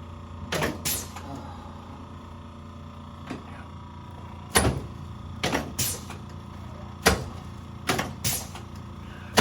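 Sharp clacks and thuds during a chiropractic adjustment on an adjusting table, about ten in all, several in quick pairs, the loudest two heavy thumps about four and a half and seven seconds in, over a steady hum.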